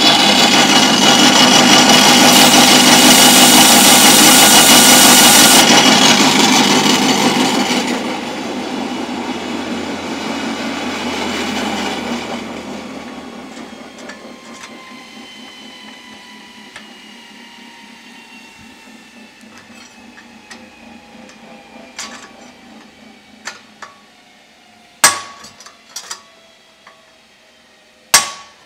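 A loud, steady mechanical noise with a whine for the first several seconds, dying away with a slowly falling tone. Then a handful of sharp hammer blows on a steel drift set in a motorcycle frame's steering head, driving at the bearing race, the last two the loudest.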